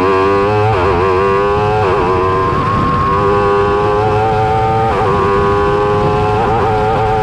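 Wolf GB08 Thunder hillclimb prototype's 1150 cc engine running hard at high revs under acceleration, heard from the open cockpit. The engine note breaks and wobbles briefly about a second in, near two seconds, around five seconds and again around six and a half seconds, holding high between.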